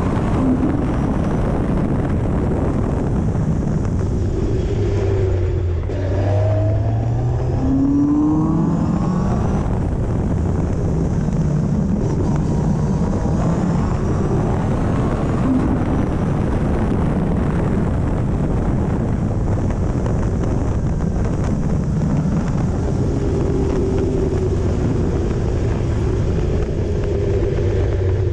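Caterham CSR260's 2.3-litre Ford Duratec four-cylinder engine driven hard on track, heard from the open cockpit: revs rising several times through the gears, over a steady rush of wind.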